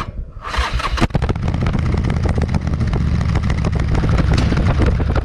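Harley-Davidson motorcycle's V-twin engine running, picking up about a second in and then holding a steady, even beat.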